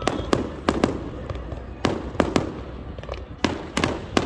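Aerial fireworks display: about a dozen sharp bangs from bursting shells in an irregular series, some in quick pairs, each followed by a brief echo.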